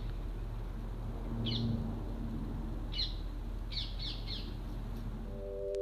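A small bird chirping: short, high single chirps about every one and a half seconds, then a quick run of three. A low steady rumble lies underneath, and held musical tones come in near the end.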